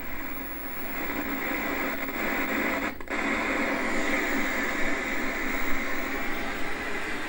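Static hiss from an old CRT television tuned to a dead channel, cutting out briefly about three seconds in.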